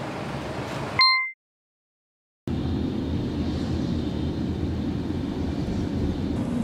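A steady hum, then about a second in a short bright chime that fades quickly and cuts off into a second of silence. After that comes the steady low rumble of road and engine noise inside a moving car.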